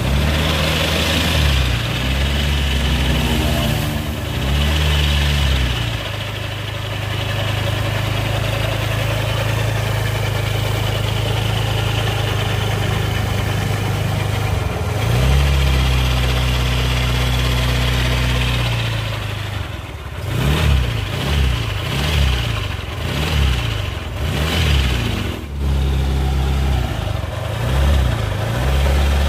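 Suzuki Nex scooter's single-cylinder engine and CVT being revved. It is held at raised revs twice, then blipped about once a second near the end. The rough growl ('ngorok') comes from the CVT when the throttle is opened, and the engine is smooth at idle. The mechanic suspects the rear pulley bearing or the bearing on the shaft behind it.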